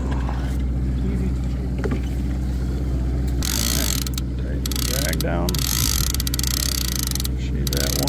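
Line-counter trolling reel (Okuma Convector) paying out line, its clicker buzzing in several spells starting about three and a half seconds in. Underneath runs the steady low hum of the boat's engine.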